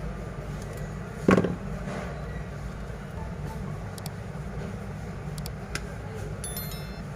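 Small clicks and a single louder knock, about a second in, of hand tools on a smartphone's internals during disassembly, over a steady low hum.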